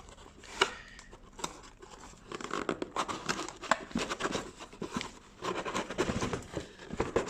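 Plastic-bagged parts of a model kit being handled and shifted in their box: irregular crinkling and rustling of plastic packaging with small clicks and knocks.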